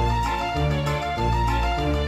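Background music: a keyboard melody over low bass notes that change about every half second.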